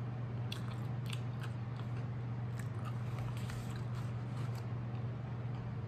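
Close-miked mouth chewing a mouthful of burger: soft, wet, irregular clicks and smacks over a steady low hum.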